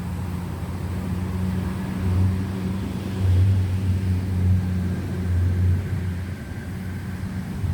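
Low, steady engine drone that swells and fades a few times.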